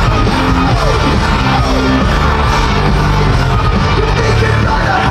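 Loud rock music with singing, playing at a steady level.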